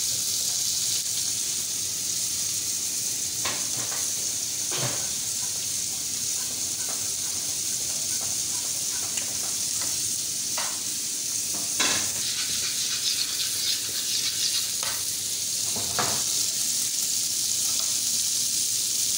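Marinated chicken strips frying in oil in a nonstick pan: a steady high sizzle, with a few sharp clicks scattered through it.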